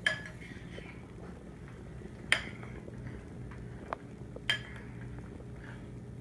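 A metal spoon clinking against a bowl as a toddler scoops mush: four sharp clinks, one near the start, then three between about two and a half and four and a half seconds in, over a low steady hum.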